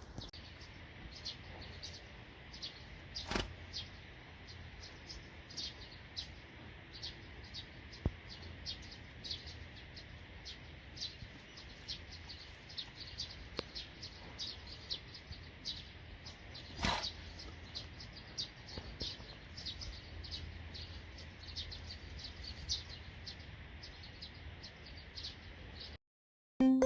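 Small birds chirping over and over, short high calls over a faint low background hum, with two sharp knocks, one a few seconds in and one about halfway through.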